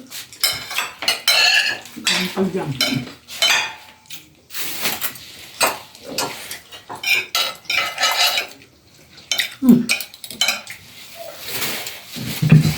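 Spoons clinking and scraping against plates as several people eat rice, in irregular short clicks and scrapes.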